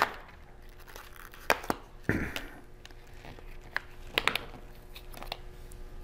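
Clear plastic clamshell case of an M.2 SSD handled and opened by hand: a scatter of sharp plastic clicks and snaps with light crinkling, the loudest about one and a half and two seconds in.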